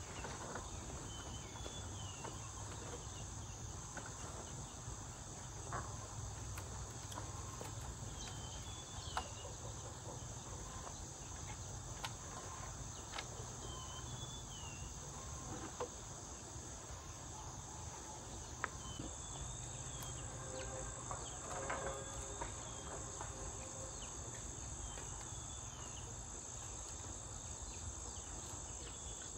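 Steady high-pitched chorus of insects, with a short chirp that recurs every few seconds and a few faint taps scattered through it.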